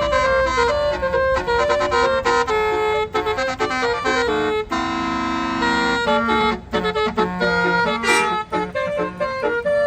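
Bus telolet horn, a Basuri multi-tone air horn, playing a quick tune of short notes, with a chord held for about a second near the middle.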